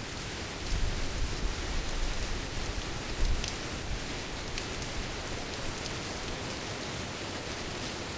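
Rain falling steadily in a thunderstorm, an even hiss with a few sharp drop ticks, over low rumbling surges in the first three seconds that then die down.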